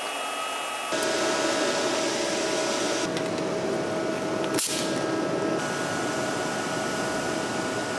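Steady whirring hum of the switched-on WIDUS CUT-45K AIR plasma cutter, a little louder from about a second in. A single sharp click comes a little past halfway.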